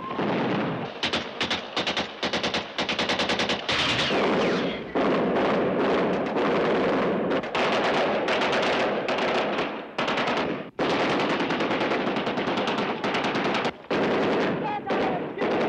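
Automatic gunfire from Sten submachine guns and a Bren light machine gun, fired in long, rapid, nearly continuous bursts with only brief breaks.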